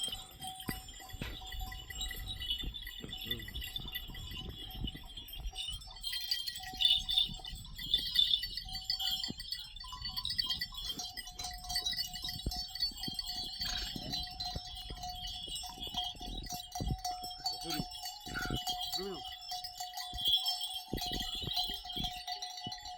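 Bells on a herd of goats and sheep clinking and ringing continuously as the animals move, with a goat or sheep bleating briefly a couple of times near the end.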